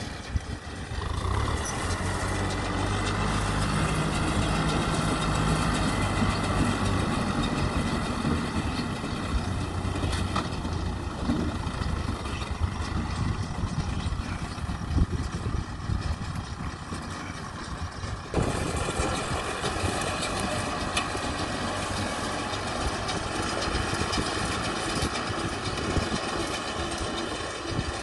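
Kubota tractor's diesel engine running steadily as it pulls a round baler through rice straw. It grows louder about a second in, then about two-thirds of the way through the sound changes abruptly to a slightly quieter, more distant engine.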